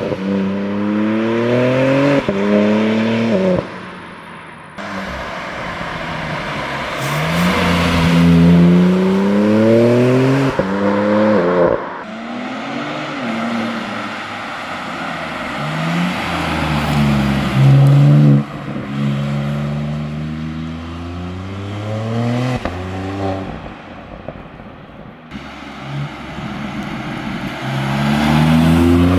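BMW M3 Touring's twin-turbo inline-six with an aftermarket ECE exhaust system, accelerating hard through the gears. The engine pitch rises again and again and drops at each upshift, and the sound swells and fades as the car comes past.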